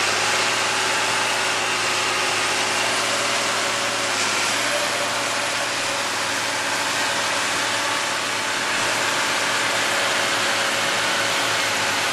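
Semi truck's diesel engine running steadily under load at low speed as the loaded rig crawls through soft, muddy field ground.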